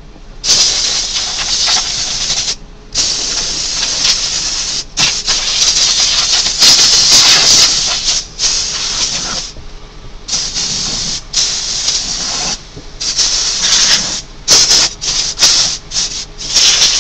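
A series of loud hissing bursts that cut in and out abruptly. Most last one to three seconds, with shorter, choppier ones near the end.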